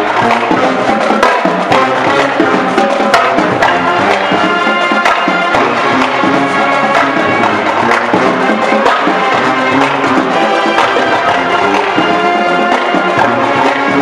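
Pep band playing up-tempo music: brass horns holding sustained notes over drums and sharp percussion clicks.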